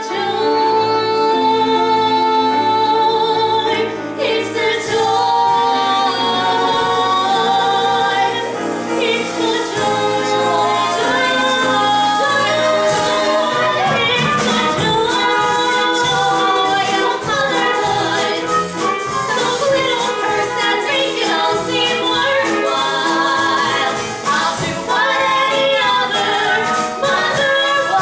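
Stage musical number: a group of voices singing with instrumental accompaniment, holding long notes with vibrato.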